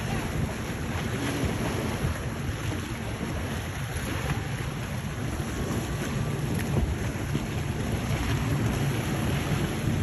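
Wind buffeting the microphone over the steady drone of a passing center-console motorboat's engine, with waves washing in the background; the boat grows slightly louder toward the end.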